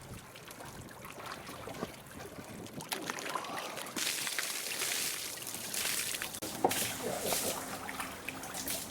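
Water splashing and pouring, louder from about four seconds in.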